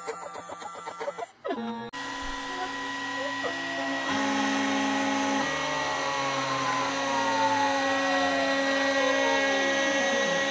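CNC router carving a wood plaque, its spindle running with a steady whine while a tapered ball-nose bit cuts. For about the first two seconds there is a fast rhythmic chatter, which stops abruptly. Over the last few seconds a tone slides steadily downward.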